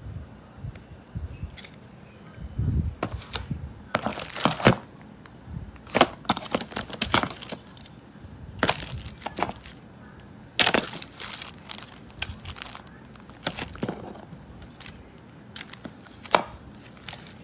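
Irregular clicks, knocks and crackling clatter, some in quick clusters, as of hard objects being handled, over a faint steady high-pitched whine.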